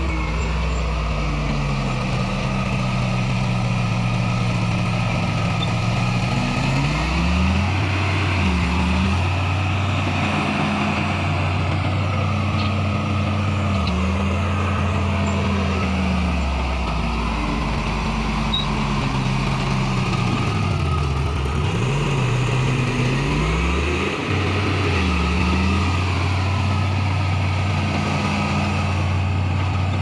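Crawler bulldozer's diesel engine running hard as the dozer pushes soil with its blade. The engine note dips and comes back up several times.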